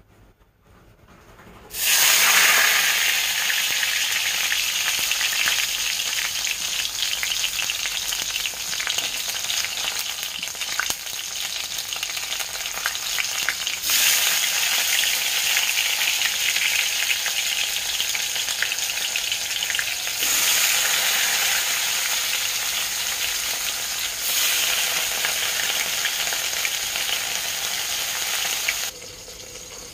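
Leaf-wrapped fish parcels frying in hot oil in an aluminium kadai: a loud, steady sizzle. It starts suddenly about two seconds in and cuts off abruptly near the end.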